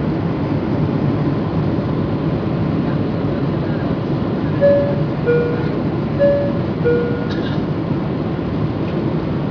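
Steady rushing cabin noise of a Boeing 747-400 climbing after takeoff, from its engines and the air over the fuselage. About halfway through, a two-tone high-low cabin chime sounds twice.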